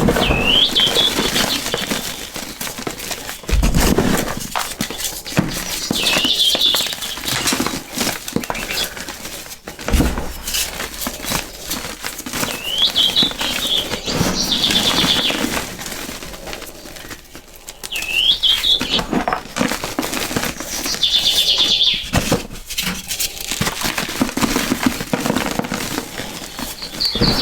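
Crispy, gritty crunching and crackling as a crumbly block is crushed by hand, dense and continuous. A bird call with quick rising chirps recurs about every six or seven seconds.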